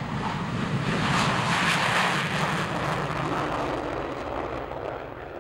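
Panavia Tornado IDS's twin RB199 turbofan engines at takeoff power as the jet rolls down the runway and lifts off. A loud jet roar peaks about two seconds in, then fades as the aircraft pulls away.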